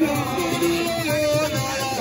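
Music with singing over plucked string instruments and a steady beat.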